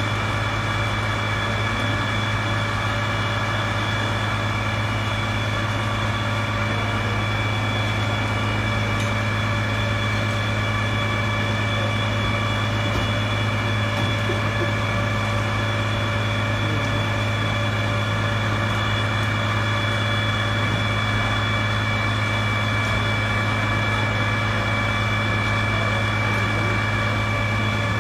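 Fire engine's motor running at a steady speed to drive its water pump while the hose is in use: a constant low drone with steady high whining tones on top.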